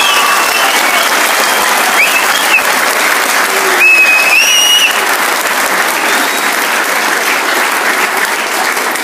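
A seated audience of students applauding and cheering, with a few high-pitched cheers about two seconds and four seconds in; the clapping eases off slightly toward the end.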